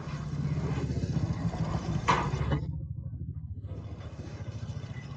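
A vehicle engine running with a rapid even beat, louder for the first couple of seconds and then settling lower. A sharp knock comes about two seconds in.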